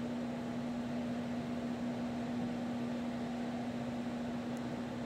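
A steady mechanical hum: one low, unwavering tone over an even hiss.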